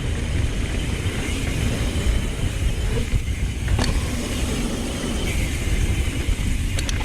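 Wind buffeting the microphone and tyre noise of a mountain bike rolling fast down a dirt jump trail, a steady low rumble, with one sharp knock about four seconds in.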